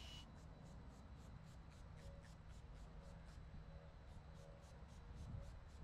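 Near silence: faint outdoor background with a low rumble and a faint, regular high ticking about four times a second.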